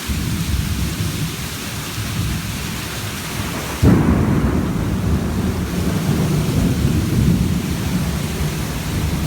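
Heavy rain pouring steadily, with thunder rumbling low under it; a sudden loud crack of thunder about four seconds in, rolling on afterwards.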